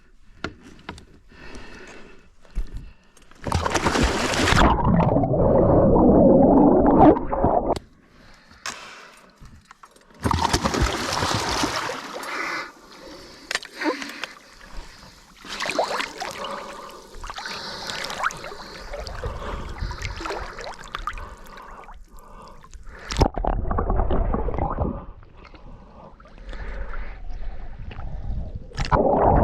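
Water sloshing and gurgling close to the microphone in loud, irregular surges.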